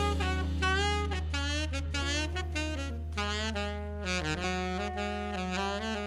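Background jazz music: a saxophone plays a wavering melody over a steady low bass note.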